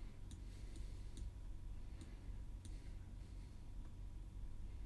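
Faint, scattered clicks of a computer mouse, a handful in the first three seconds, over a low steady hum.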